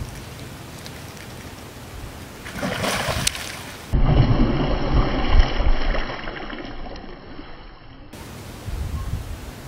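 A hooked fish splashing at the water's surface, heaviest from about four seconds in and dying away over the next few seconds.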